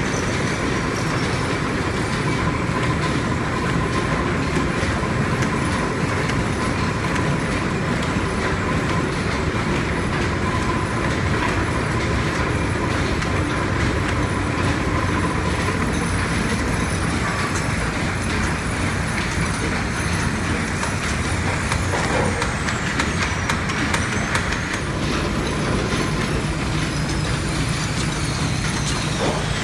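Lineshaft machinery running steadily: the constantly turning overhead lineshaft driving flat belts over cast-iron pulleys, a continuous mechanical rumble and rattle with a faint steady whine in the first half.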